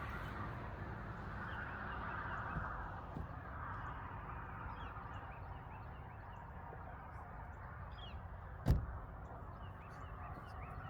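Faint bird calls over a steady low rumble, with one sharp knock about nine seconds in.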